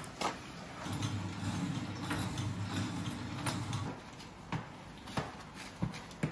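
Gloved hands working a mass of hot salt-lemon hard candy on the worktables: scattered sharp knocks and taps as the mass is pressed and turned. A low steady hum runs from about a second in until about four seconds.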